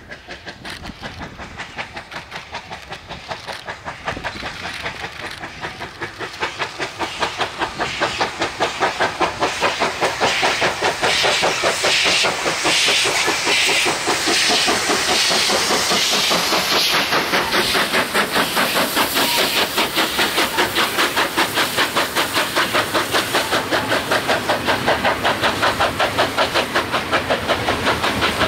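South African Railways steam locomotive working under steam, its exhaust chuffing about four beats a second. The beats grow louder over the first ten seconds and then hold steady, with a hiss of steam over them.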